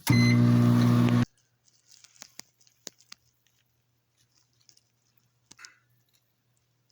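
Microwave oven beeping once, then running with a loud steady hum that cuts off suddenly about a second in. After that come scattered faint clicks and crunches, like food and dishes being handled.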